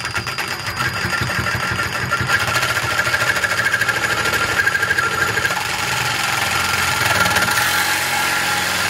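Batavia 18 V cordless reciprocating saw running at speed, its blade sawing through a metal pipe with a steady, rapid rasping buzz. The cut stops abruptly near the end.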